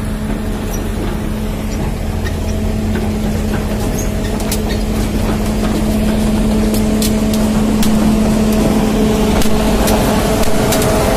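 Diesel engines of heavy construction machinery (tracked excavators) idling: a steady hum that grows slightly louder partway through.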